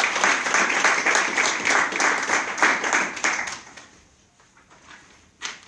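A small audience applauding the graduate, a dense patter of clapping that dies away about three and a half seconds in. A single sharp knock near the end.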